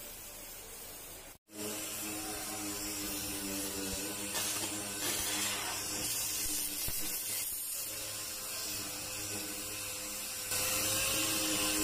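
Gas cutting torch hissing as it cuts through the car's body sheet metal. The hiss comes and goes and is loudest near the end, over a steady low hum. There is a brief dropout to silence about a second and a half in.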